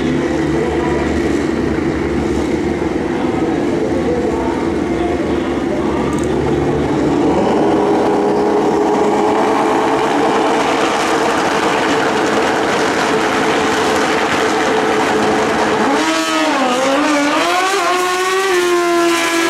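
Two Pro Street drag racing motorcycle engines running hard at the starting line. About three-quarters of the way through they launch, and the engine pitch climbs and drops through the gear changes as the bikes pull away down the track.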